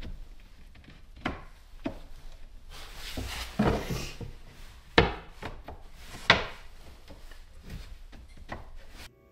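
Wooden boards being laid down and shifted on a plywood ledge: a handful of hollow wooden knocks, the two loudest about five and six seconds in, with boards sliding and rubbing against each other in between.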